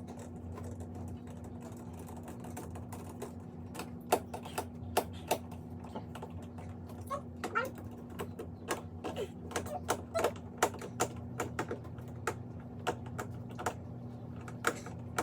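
Irregular sharp clicks and light knocks of a screwdriver and plastic fire alarm device parts being handled and screwed at a junction box, starting about four seconds in, with a few short squeaks, over a steady low hum.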